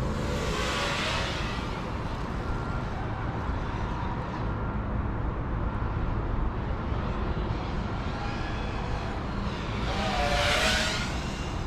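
FPV quadcopter's electric motors and propellers in flight over a steady rush of air noise, with two louder surges of motor whine, one about a second in and a stronger one near the end.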